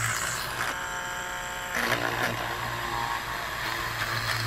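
Homemade mini electric drill, a small DC motor in a white tube turning a thin bit in a brass collet, running and drilling into the end of a soft wooden stick. It gives a steady buzzing whine whose tone changes a few times.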